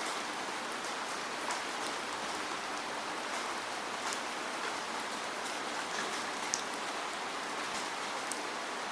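Steady rainfall, an even hiss of rain with scattered individual drops ticking sharply on a surface.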